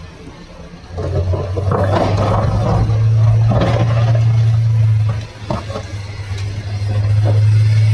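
Excavator in a coal mine: a steady low engine drone sets in about a second in, with irregular scraping and clattering over it, and the drone dips briefly a little past halfway.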